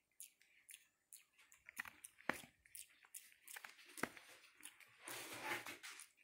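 Faint close-up crackles and clicks of fingers scratching through a Java macaque's fur, with a denser rustle about five seconds in.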